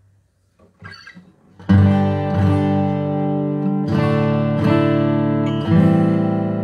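Dreadnought acoustic guitar with an Adirondack spruce top and Red Narra back and sides, played fingerstyle. After a quiet opening with a few faint sounds, a chord rings out a little under two seconds in, followed by further chords struck about a second apart that ring on.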